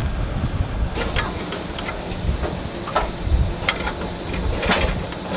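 Ship's deck-mounted machine gun firing, irregular thumps with sharp metallic clicks as the ammunition belt feeds, over a steady rumble of wind on the microphone.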